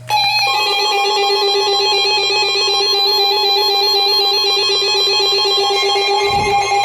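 Emergency Alert System attention tone signalling a flash flood warning: a loud, steady electronic alarm tone that starts just after the opening, with a brief low bump about six seconds in.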